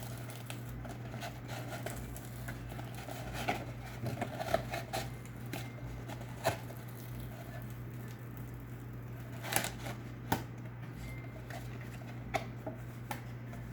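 Cardboard Pokémon Elite Trainer Box being handled and opened: scattered light taps, scrapes and rustles of card and packaging, with a few sharper clicks. A steady low hum lies under it all.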